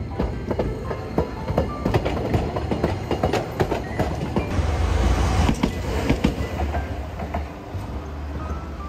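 Tokyo Sakura Tram (Toei Arakawa Line) streetcar running on the rails: its wheels click and knock over the track, with a low rumble that swells about five seconds in and eases off near the end.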